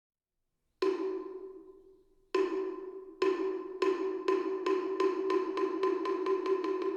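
Moktak, the Buddhist wooden fish, struck with a mallet: one hollow ringing knock about a second in, another after a long pause, then strikes coming faster and faster into a quick roll.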